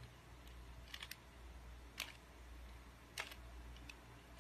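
Plastic 2x2 Rubik's cube being turned by hand: short clicks and clacks of the layers turning and snapping into place, one or two at a time about a second apart.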